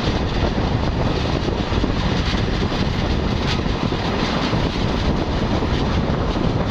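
Passenger train of Russian-built coaches rolling past as it leaves the station: a steady, loud rumble of wheels on the rails, with a few faint clicks from the rail joints.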